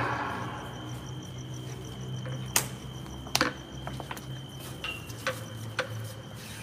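Crickets trilling steadily in the night air, one high unbroken note, with a handful of sharp clicks and knocks; the two loudest come about two and a half and three and a half seconds in.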